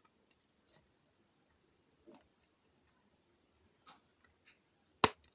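Small robot-kit parts being handled during assembly: a few faint scattered taps, then one sharp click near the end.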